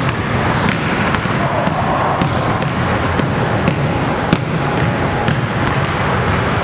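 Basketball being dribbled on a hardwood gym floor: irregular sharp bounces over a dense, echoing background.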